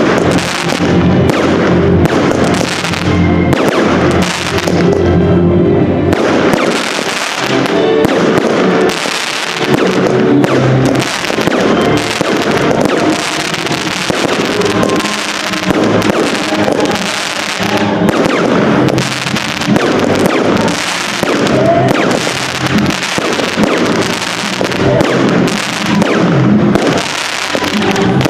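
Fireworks going off in rapid succession: many sharp bangs and crackling bursts, with music playing underneath.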